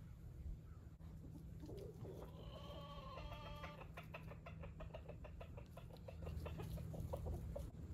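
Faint chicken calls: a drawn-out call about two seconds in, then a quick run of clucks.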